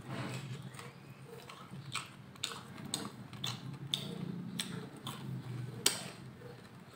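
Mouth-noise eating of fried dried fish (daing): chewing with a series of sharp clicks and crunches, roughly one every half second to second, over a low steady hum.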